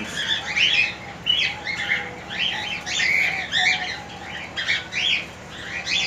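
Many small caged birds chattering: overlapping short chirps and squawks, several a second.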